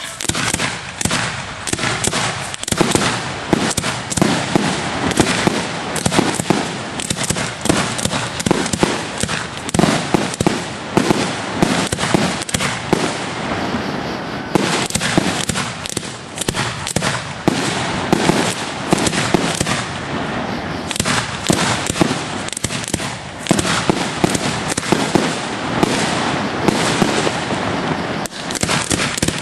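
Professional display fireworks going off in a dense, unbroken barrage of bangs and crackles, heard from the firing site. It starts suddenly right at the beginning.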